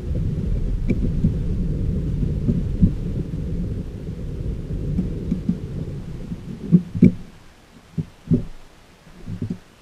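Thunder rumbling, starting abruptly and slowly dying away over several seconds, followed by a few short dull knocks near the end.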